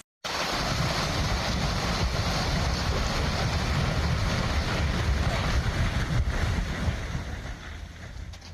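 Wind buffeting the microphone: a steady rushing noise with a heavy low rumble, easing off near the end.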